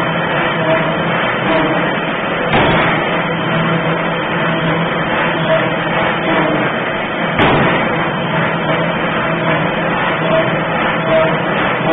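1.5-ton forging hammer striking hot metal: two heavy blows, about five seconds apart, over the loud steady din of the forge shop's running machinery.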